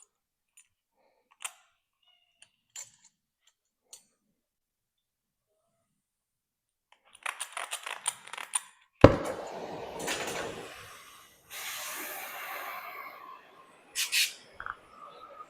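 Metal parts being handled and knocked about: a few light clicks, then a run of clattering from about seven seconds in, one loud clang about nine seconds in that rattles on briefly, a stretch of rough scraping noise, and another couple of clanks near the end.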